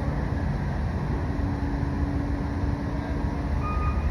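Steady low rumble with a faint steady hum, from a passing train. A higher whine comes in near the end.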